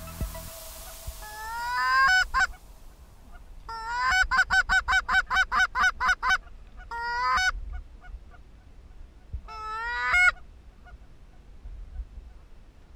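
Canada goose calls from one caller: drawn-out rising honks that break sharply at the top, and a fast run of about a dozen short clucks, about four a second. The calling stops a few seconds before the end.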